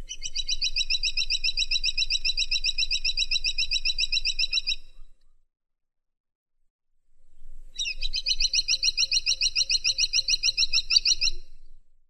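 Grey-and-buff woodpecker (caladi tikotok) calling: two long runs of rapid, high, repeated chirping notes, each about four seconds, separated by a pause of about three seconds.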